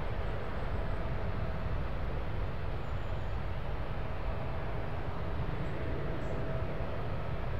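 Airbus A340-300's four CFM56 turbofans at takeoff thrust as the airliner climbs away just after liftoff: a steady, deep rumble.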